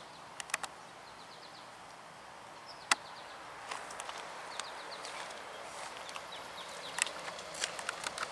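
Birds chirping in short trills over quiet outdoor ambience, with scattered footsteps and scuffs on gravel and a single sharp click about three seconds in.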